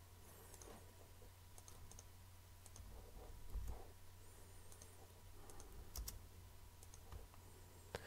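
Faint, scattered clicks of a computer mouse and keyboard over near-silent room tone.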